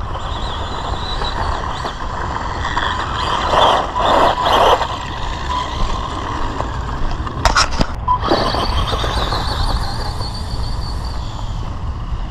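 Electric motors of small RC buggies whining as they speed over a dirt track, the pitch shifting with throttle, over a steady low rumble. There are louder bursts about four seconds in and a couple of sharp knocks a little past halfway.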